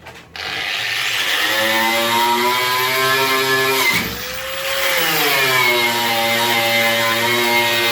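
Handheld electric power tool starting up and running under load, its pitch sagging and recovering as it bites. Around the middle it bogs down briefly, then picks back up.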